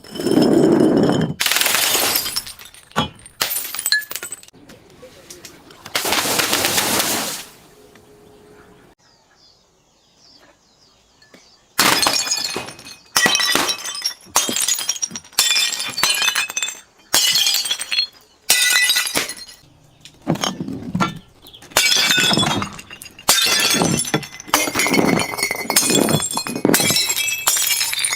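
Glass bottles being smashed, one after another: a few long crashes, a pause, then a quick run of shattering breaks about a second apart, each with the high tinkle of falling shards.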